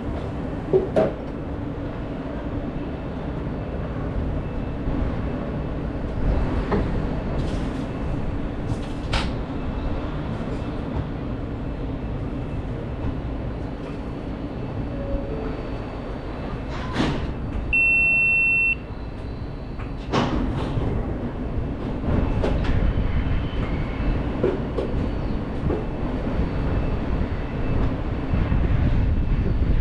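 New York City subway L train in motion, heard from inside the car: a steady low rumble of wheels on rail with scattered sharp clacks. A short, steady high beep sounds once, a little past the middle.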